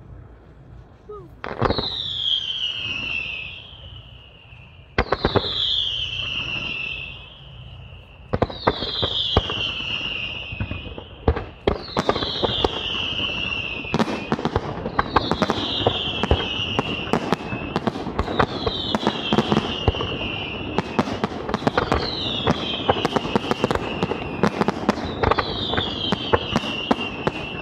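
Fireworks display: about ten sharp bangs, each followed by a whistle that falls in pitch over a second or two. They come a few seconds apart at first, then about every two seconds. From about a third of the way in, dense crackling fills the gaps, matching the green crackling stars.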